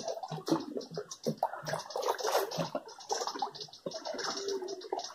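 River water splashing and sloshing in short, uneven bursts around a wading angler fighting a hooked peacock bass on a rod.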